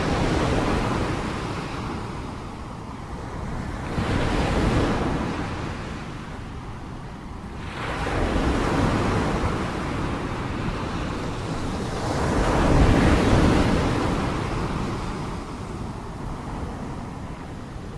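Sea waves washing ashore, the surf swelling and easing off in four waves about four seconds apart, the fourth the loudest, with some wind buffeting the microphone.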